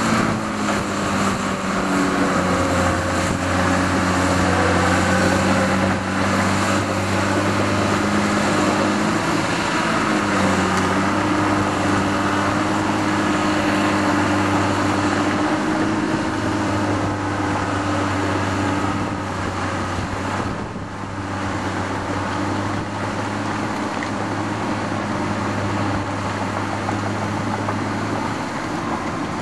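Diesel engines of a crawler bulldozer and tracked excavators running as they work, the engine note shifting a little in pitch now and then, under blustery wind buffeting and crackling on the microphone.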